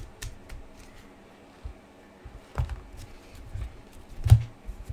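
Trading cards and a clear rigid plastic card holder being handled: light clicks and rustles, with a sharper knock about two and a half seconds in and the loudest knock, with a dull thump, a little past four seconds.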